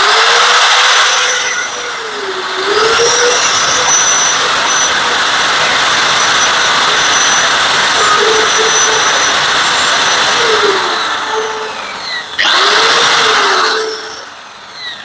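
Angle grinder with a thin cut-off disc running and cutting light slots into a small metal piece clamped in a vise, throwing sparks. The motor's pitch sags a few times as the disc bites, and near the end the grinder winds down.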